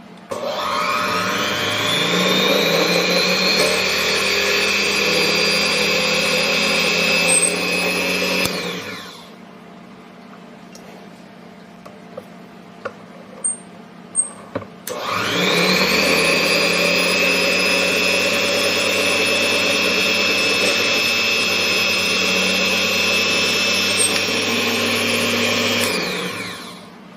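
An electric power tool's motor, run twice. Each time it winds up with a rising whine, runs steadily for about eight to eleven seconds, then winds down. A few sharp clicks fall in the pause between the runs.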